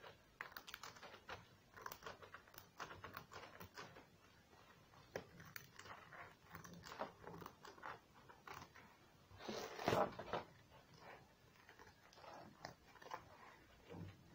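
Pinking shears snipping through white card in a run of short, faint crunching cuts, with one louder, longer crunch about ten seconds in.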